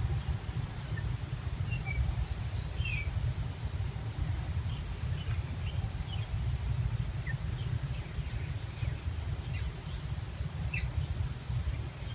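Birds chirping in short, scattered calls, more of them in the second half, over a steady low rumble.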